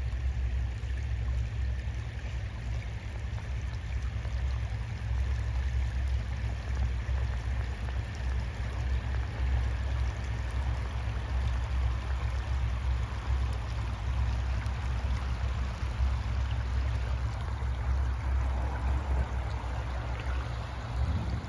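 Spring water running and trickling across the drained lake bed, over a steady low rumble.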